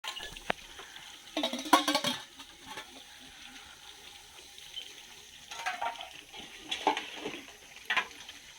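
Peacock calling: one loud, drawn-out call about a second and a half in, then three shorter calls in the second half.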